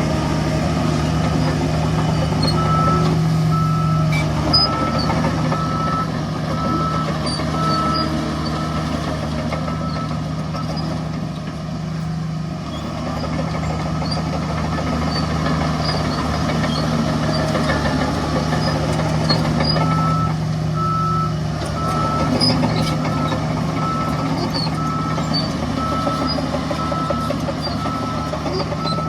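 Heavy diesel construction machine running steadily, with a reversing alarm beeping about once a second, first for several seconds and again through the second half.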